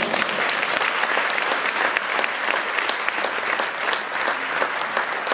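Audience clapping in a steady round of applause.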